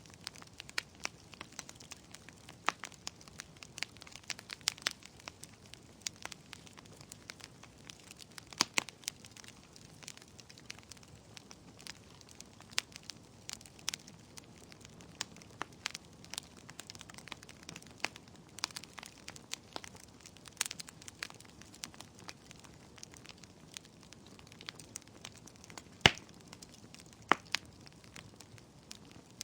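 Wood fire crackling: irregular sharp pops and snaps of burning wood over a low hiss, with a louder pop about 26 seconds in.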